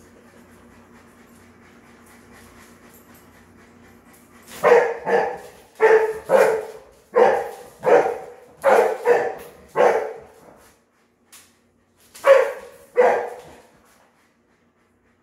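A dog barking: a run of about nine loud barks, then two more after a short pause.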